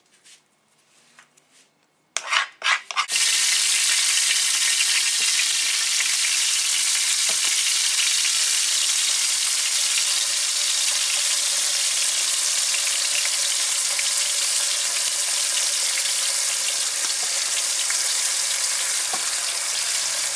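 Chunks of venison going into hot oil in a large frying pan and sizzling steadily as they sear. A few light knocks come just before the sizzle starts suddenly about three seconds in.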